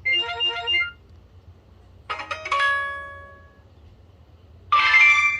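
BlackBerry Curve 8520 alert tones: three short electronic chimes, one after another. The first is a quick run of short notes; the second, about two seconds in, and the third, near the end, are chimes whose notes ring on and fade.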